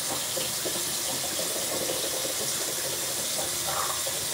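Sink tap running in a steady stream into the basin.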